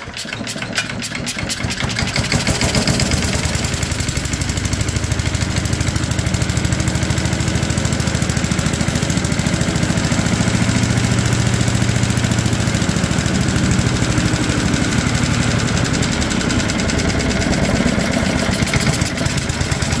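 Tecumseh engine on a Craftsman wood chipper catching on a pull of the starter cord and settling into a steady run. It is running on a cleaned carburetor with its mixture jets just set.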